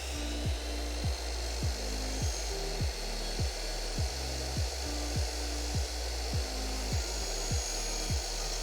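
Power saw cutting a mitre across a length of wooden skirting board: the motor whines up just before and runs steadily at speed. A steady beat of background music runs underneath.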